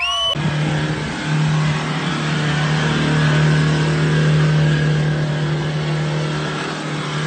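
Mitsubishi L200 pickup engine held at high, steady revs while the truck spins donuts on grass.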